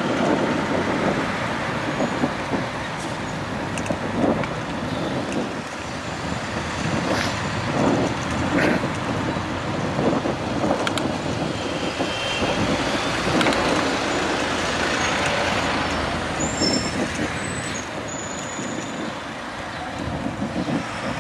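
Road traffic: a continuous rumble of motor vehicles passing, swelling and fading, with a few short high squeals about three-quarters through.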